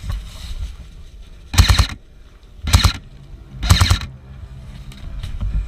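Electric airsoft gun firing three short full-auto bursts about a second apart, its gearbox cycling rapidly in each burst.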